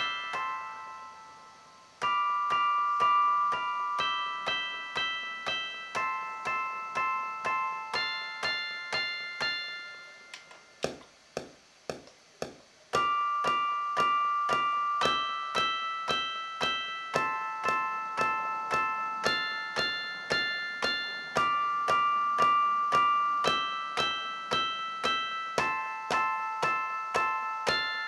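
A beat being built on a drum pad controller: keyboard chords in an electric-piano sound change about once a second over a steady drum pattern of about two hits a second. About ten seconds in, the chords drop out for a few seconds, leaving only the drums, then the full loop comes back in.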